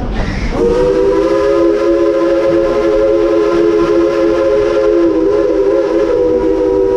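Coal-fired steam locomotive's chime whistle blowing one long blast, several notes sounding together as a chord, starting about half a second in and held steady.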